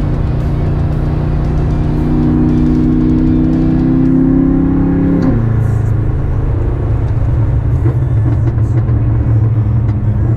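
BMW F10 M5 twin-turbo V8 pulling under steady acceleration, its pitch climbing slowly for about five seconds. It drops sharply at a gear upshift about halfway through, then runs steady at lower revs.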